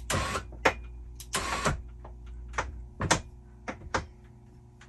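Replacement electric linear actuator for a bed lift, jogged from its remote in a series of short whirring bursts to inch the mount into line for its pin. A steady low hum runs under it and stops about three seconds in.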